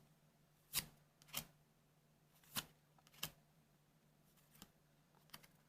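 Weiss Schwarz trading cards being handled one at a time: four short card swishes in two pairs, then a couple of faint ticks near the end.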